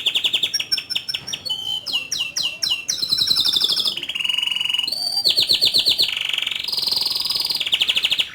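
Domestic canary singing a continuous rolling song: long trills of fast-repeated high notes, with quick falling sweeps of notes about two to three seconds in, and no pause between phrases.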